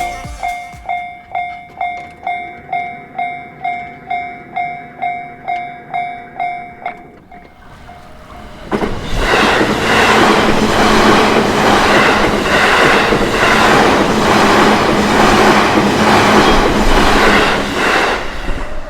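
Japanese level crossing warning bell ringing about twice a second; it drops away about seven seconds in. About nine seconds in a JR Ome Line train passes close by, its wheels clattering over the rails in a steady rhythm for about nine seconds before the sound falls off near the end.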